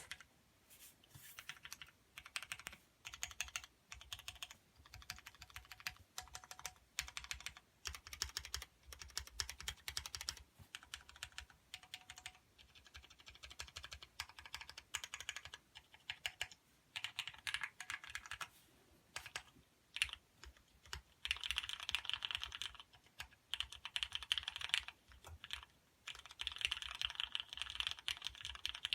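Typing on a custom 84-key mechanical keyboard with Cherry MX Black linear switches on a Teflon plate: runs of rapid keystrokes with short pauses between them. The typing gets faster and louder about two thirds of the way through.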